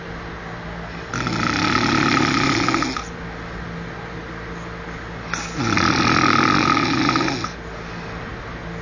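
A man snoring while asleep: two long snores about four seconds apart, each lasting about two seconds.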